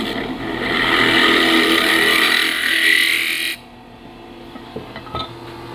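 A turning tool scraping and cutting ash on a spinning wood lathe, thinning a cup to a thin wall. The cutting noise stops suddenly about three and a half seconds in as the tool is lifted away, and the lathe's steady motor hum carries on.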